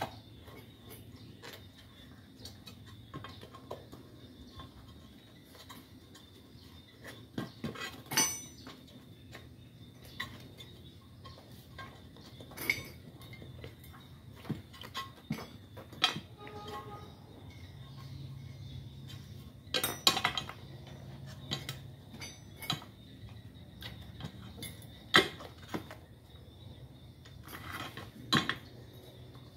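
Scattered clinks and knocks as a motorcycle tyre and new inner tube are worked by hand onto a cast wheel rim. The loudest knocks come about 8, 20 and 25 seconds in.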